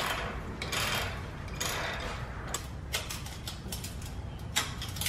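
Ratchet wrench with a 15 mm socket clicking in short strokes as it loosens a bolt on a car's exhaust, with a few sharper knocks near the end.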